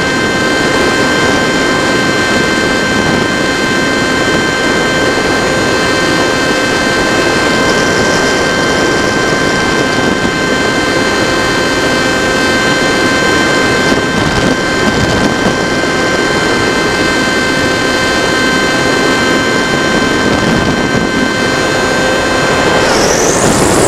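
The electric motor and propeller of a TechOne Mercury RC foam plane, heard from a camera on the airframe: a steady whine over the rush of air while the plane holds a constant throttle in flight. Near the end the steady whine breaks off and a higher-pitched whine rises.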